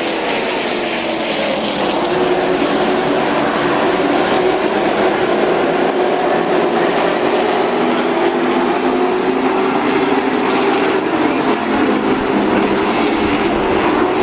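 A pack of stock car V8 engines racing, loud and continuous, several engine notes rising and falling over one another as the cars brake and accelerate around the track.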